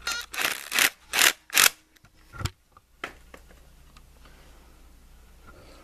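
Socket ratchet clicking in four quick strokes, each about a second and a half apart in total, as the timing belt tensioner bolt on a Honda D16 SOHC engine is tightened, followed about a second later by one dull knock.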